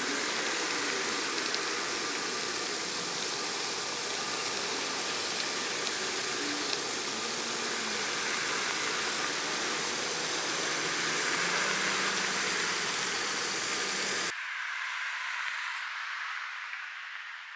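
A steady, loud rushing hiss like static that cuts off suddenly about fourteen seconds in, leaving a softer hiss.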